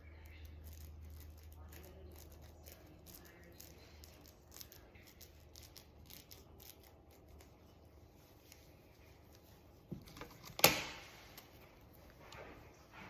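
Faint crinkling and small clicks of plastic cling film being handled, then a sharp knock about ten and a half seconds in, the loudest sound, with a smaller knock just before it.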